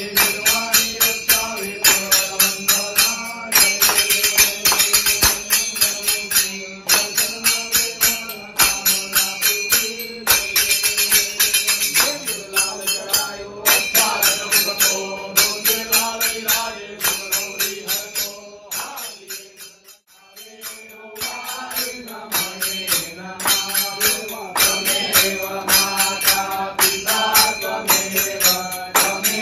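Devotional aarti sung by voices to a steady beat of jingling hand percussion, with a short break about two-thirds of the way through.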